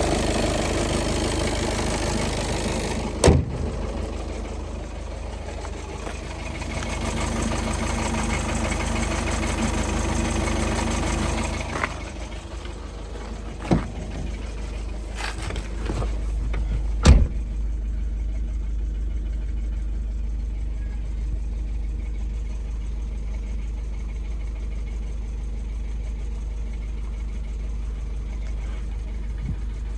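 A Volkswagen Golf 7's 2.0-litre engine with automatic gearbox idling steadily, with three sharp knocks about 3, 14 and 17 seconds in. The noise is put down to the flywheel. The running sound drops somewhat about 12 seconds in and again after the last knock.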